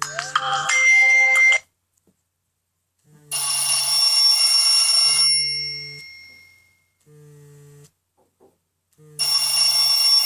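A Nokia N97 Mini ringtone playing from the phone's loudspeaker in short bright electronic phrases: a first one with rising sweeps and a held note, a longer chord that fades out after the middle, and a third starting near the end. Between them the phone's vibration motor buzzes in short pulses about every two seconds.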